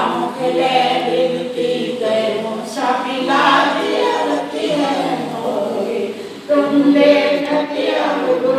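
A group of voices singing a Hindu devotional hymn together in unison during aarti, with long held notes and a short pause between lines about six and a half seconds in.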